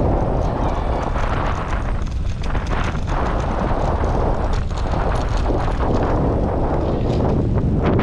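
Wind buffeting the microphone: a loud, steady low rumble with scattered crackles.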